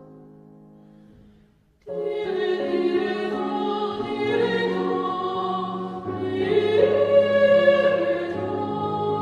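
Mixed choir singing. A chord fades away, then after a short break the choir comes in abruptly about two seconds in and sings on.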